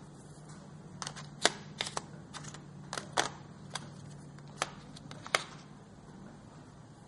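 Wax crayons clicking and knocking against each other and the table as one is put down and another picked out, about a dozen sharp irregular clicks, over a steady low hum.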